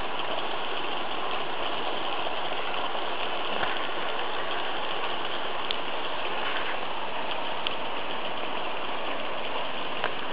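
Märklin model trains running on their track: a steady rushing rumble of wheels and motors, with a few faint clicks.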